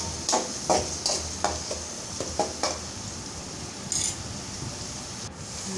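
Metal spatula scraping and stirring a wet ground masala paste around a metal kadai, several quick strokes in the first few seconds and one more about four seconds in, over a steady sizzle of the paste frying in hot oil.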